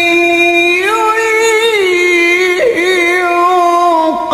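Male qari's voice in melodic Qur'an recitation (tilawah), drawing out one long vowel. The held note steps up about a second in, comes back down, and takes a quick ornamental turn around halfway through.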